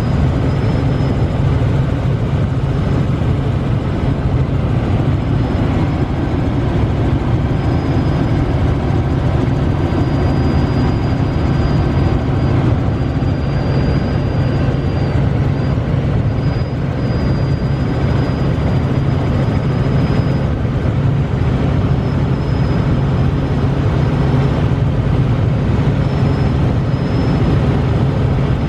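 Steady engine and rotor drone of a Robinson helicopter in cruise flight, heard from inside the cabin, with a faint high whine that comes and goes.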